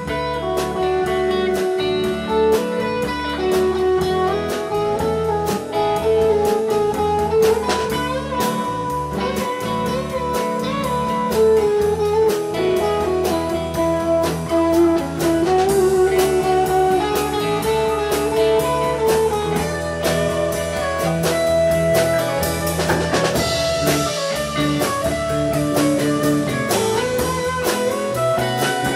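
Blues music with electric guitar and a drum-kit beat.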